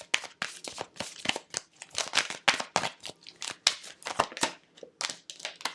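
Tarot cards being shuffled and handled: a quick, irregular run of crisp card flicks and clicks.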